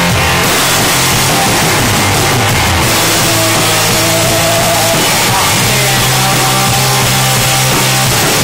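Loud live garage rock from a guitar-and-drums duo: distorted electric guitar holding low notes over steady drum-kit playing, the whole mix dense and unbroken.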